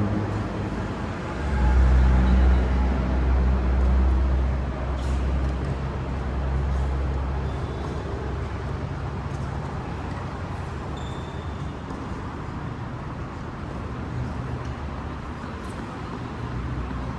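Low vehicle-like engine rumble, loudest for several seconds near the start, then easing into a steady background din.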